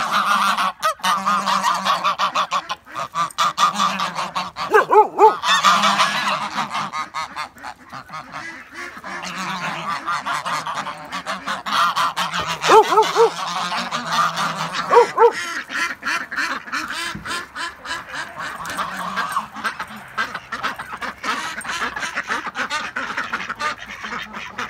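A flock of white Sebastopol geese chattering and honking while they dabble their bills in the mud, a dense clatter running under the calls. A few louder honks stand out about five, thirteen and fifteen seconds in.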